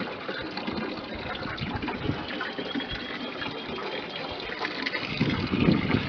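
Water splashing and draining as a hand fish net is swept through a shallow tank of water and lifted out, water running back through its mesh.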